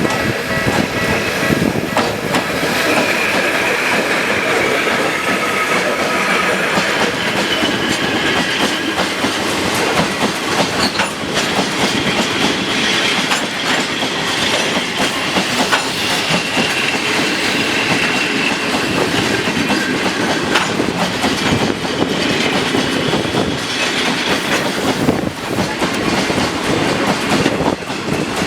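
Cement freight train of tank wagons rolling past at close range, the wheels clattering over the rail joints.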